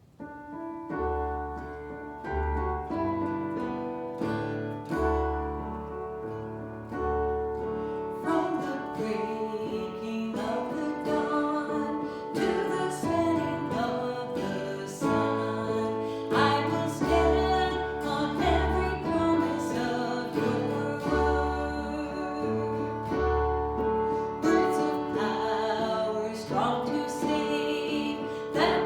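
Music with guitar, keyboard and a pulsing bass line, with singing coming in and the music growing fuller about eight seconds in.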